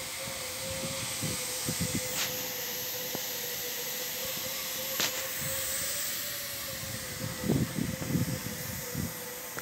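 Outdoor shipyard background noise: a steady hiss with a faint, steady machine whine running under it, and a few low rumbles near the end.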